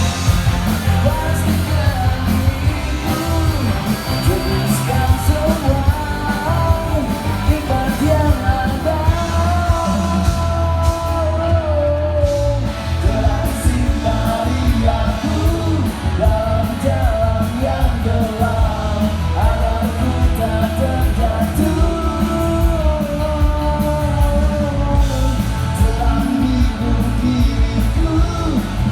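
A live rock band plays a song through a PA system, with drums, bass and guitars under a lead vocalist singing the melody.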